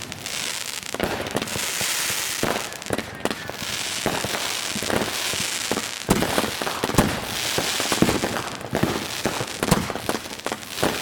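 Consumer aerial fireworks (200-gram cakes and shells) going off in rapid succession: a continuous crackle with many sharp booming reports over it, which come thicker and louder about halfway through.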